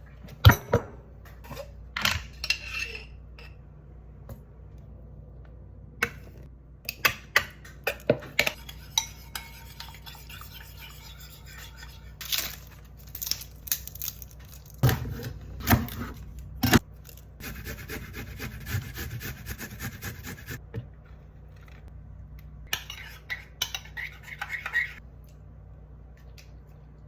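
Dishes and cutlery being handled: scattered clinks and knocks, with a few seconds of fast, even rattling a little past the middle.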